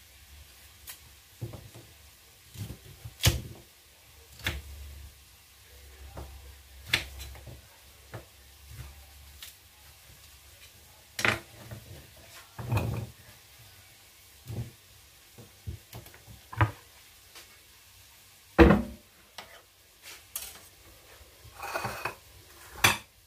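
A kitchen knife cuts raw sweet potato into cubes on a wooden chopping board, making irregular knocks every second or two. The loudest knock comes about three-quarters of the way through. Near the end there is a short scrape as the cut pieces are gathered into a bowl.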